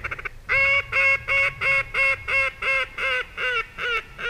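Mallard hen quacking: a regular run of about a dozen nasal quacks, roughly four a second, starting about half a second in and slowing and dropping in pitch toward the end, in the pattern of a hen mallard's descending call.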